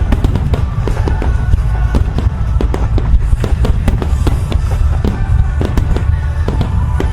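A dense barrage of fireworks shells bursting, with many sharp reports and crackles a second and a heavy low boom, over loud music played along with the show.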